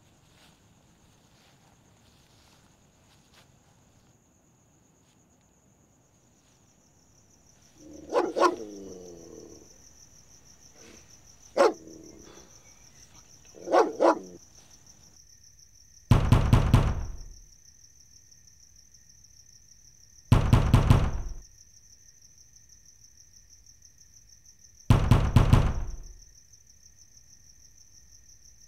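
A dog barks three times, then three loud bursts of pounding on a door come about four seconds apart, over steady cricket chirring.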